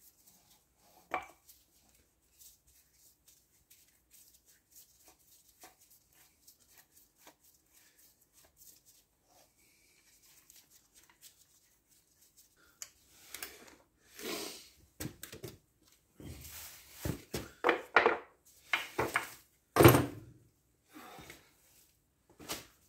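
Hand work on a hydraulic pump's control head: faint small metal clicks and taps for the first dozen seconds, then from about thirteen seconds in a run of louder knocks, clatters and rustles as parts and tools are handled and set down on a wooden bench, the loudest knock near the end.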